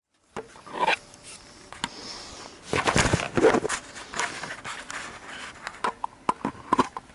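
Handling noise from a small action camera being held and moved: irregular scrapes and rustles of clothing against the microphone, with sharp clicks and knocks.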